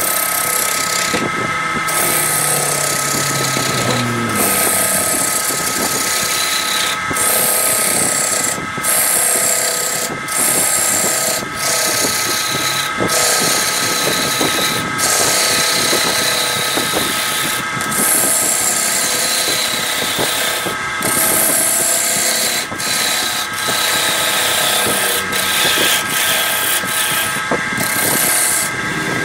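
Wood lathe running while a turning tool roughs down an out-of-round, bark-covered log blank: a rough, chattering cutting noise that breaks off briefly every second or two as the tool loses and regains contact, over the lathe motor's steady whine.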